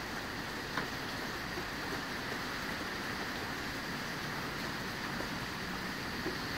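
Steady rain falling, an even hiss with no rise or fall, with one faint tick a little under a second in.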